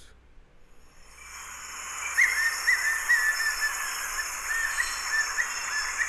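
Recorded song of a white-necked puffbird: a series of short, thin notes repeated at a steady pace, starting about two seconds in, over a steady high-pitched background hiss that fades in during the first second.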